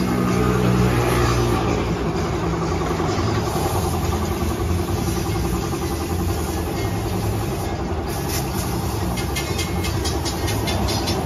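An air compressor's motor running steadily, feeding a paint spray gun that hisses as it sprays. A run of quick faint ticks comes in near the end.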